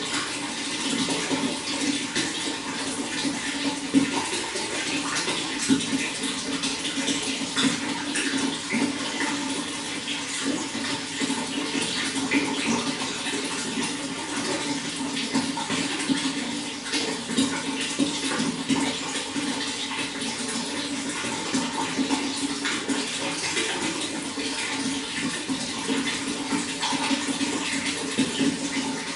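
Running water flowing steadily, with many small splashes.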